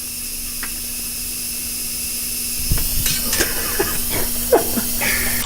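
WD-40 penetrant hissing on the hot exhaust downpipe bolts of a Veloster Turbo: a steady hiss that slowly grows louder, with a few light knocks in the second half.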